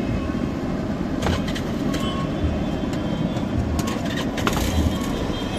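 Steady street traffic noise with a low rumble, and a few sharp clicks through it.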